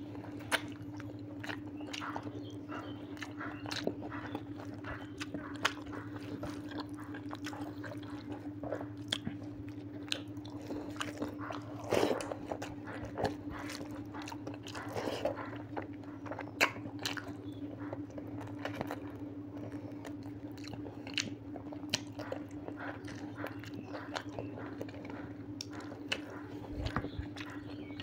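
Close-up mouth sounds of a person chewing and biting mutton curry and rice eaten by hand, with many short clicks and crunches. A steady low hum runs beneath.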